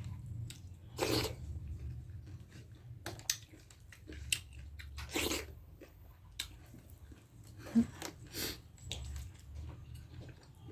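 Close-miked chewing and biting while eating, with scattered mouth clicks and a few louder crunchy bites.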